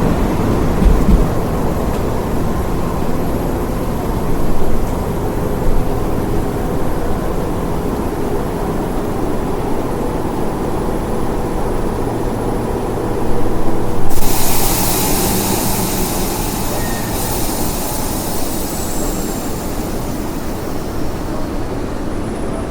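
A train running on railway track, a steady low rumble. About two-thirds of the way through, a loud hiss cuts in suddenly and runs for several seconds.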